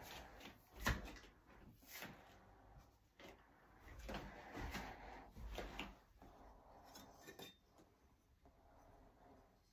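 Quiet handling noises as slumped glass pieces and ceramic kiln furniture are moved around. There is a sharp knock about a second in, a couple of seconds of rubbing and scraping midway, and a few light clicks later.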